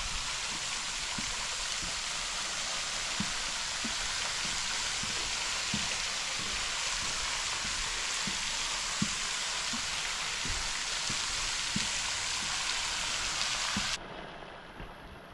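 Steady rushing hiss of flowing water, with faint irregular low knocks scattered through it; it drops away abruptly near the end to a much quieter background.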